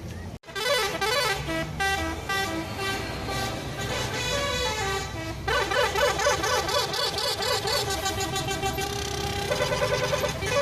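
Bus telolet horn, a set of musical multi-tone air horns, playing a fast tune of stepped notes that turns into warbling chords about halfway through, over a low engine rumble. It breaks off briefly about half a second in, then plays on.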